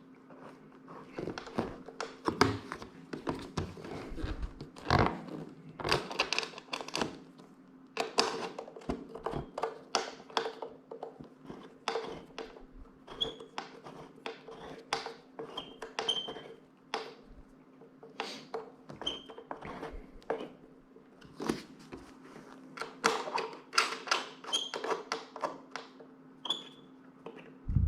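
Irregular clicks and knocks of hand tools and the motorcycle seat being fitted and bolted down, with a few short high squeaks, over a steady low hum.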